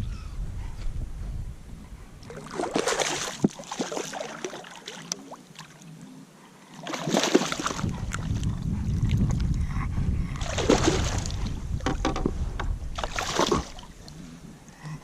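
Kayak paddle strokes in the water, four of them a few seconds apart, over a low rumble of wind on the microphone.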